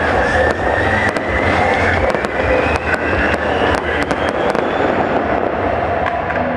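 Aerial fireworks bursting: a dense run of sharp crackles and bangs over a steady hiss, thinning out in the last couple of seconds. A high tone rises slowly in pitch through the first few seconds.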